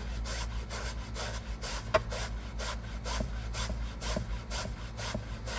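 Stiff crevice brush scrubbing a car seat's fabric upholstery by hand in quick back-and-forth strokes, about four a second, the bristles rasping on the cloth. A single sharp click about two seconds in.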